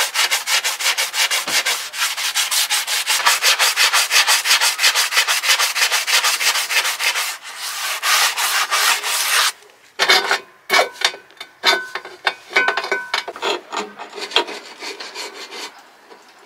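Hand sanding of a painted part whose paint is flaking, done in fast back-and-forth strokes of about four or five a second. After a short break at about nine and a half seconds, slower, irregular strokes follow with a few brief squeaks.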